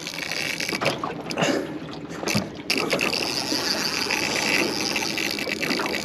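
A fishing reel's drag buzzes steadily as a big fish strips line against it. The buzz starts about three seconds in, over wind and water noise.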